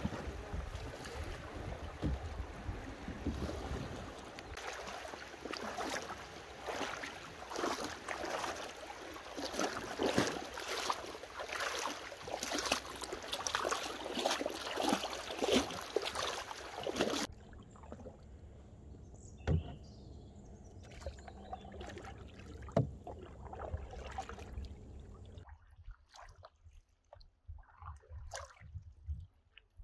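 River water splashing and rushing around a canoe with paddle strokes in the water, loud and busy for a little over half the time. After a sudden cut it goes much quieter, with a single sharp knock, and near the end only faint drips and ticks of a paddle dipping into calm water.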